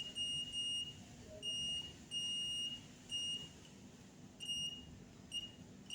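Multimeter in continuity mode beeping in short, uneven bursts, about six times, as its probes touch points on a PS5 motherboard. Each beep marks a low-resistance path, a possible short to ground.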